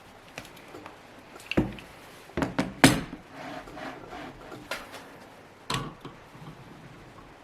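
Hard objects being handled and set down: about six sharp knocks and clicks, the loudest about three seconds in.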